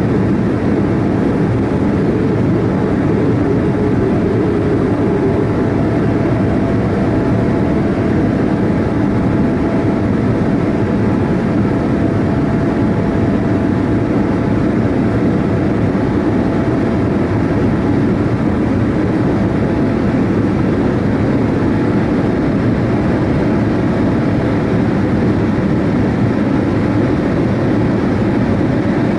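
Steady, loud rumble of a Boeing 787-8 airliner's GE GEnx-1B jet engines, with a faint steady hum running through it.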